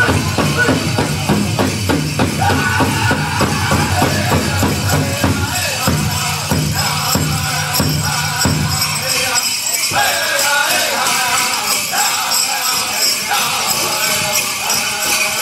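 Powwow drum group singing in high voices over a steady big-drum beat, with the jingling of dancers' ankle bells. The drumbeat stops about nine and a half seconds in and voices carry on without it.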